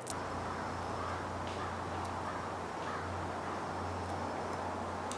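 Steady outdoor background noise: an even rushing hiss over a low hum, with a few faint, scattered ticks.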